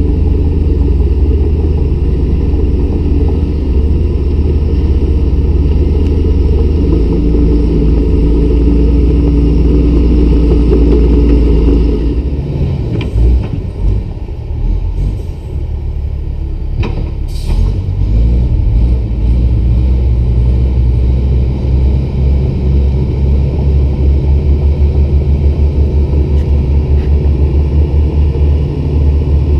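Heavy diesel engines running loud and low: first a steady drone, then, about halfway, a break and a deeper throbbing as a crawler bulldozer pushes a loaded Hino dump truck up a slippery haul-road climb it could not make on its own.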